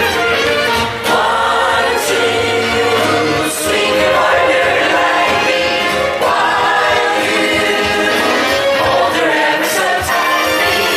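Show music: a group of voices singing together over band accompaniment.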